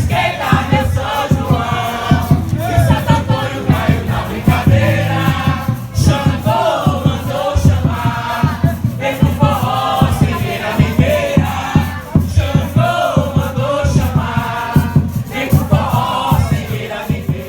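Live forró music with a crowd of voices singing along over a dense, quick drum beat.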